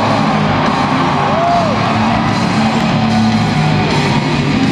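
Loud rock music played over an arena's sound system during a pre-game light show.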